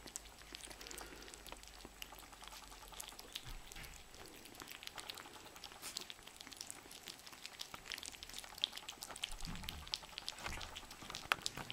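Bichon Frise puppies lapping and licking soft food from a shared plate: a quick, irregular patter of small wet clicks and smacks.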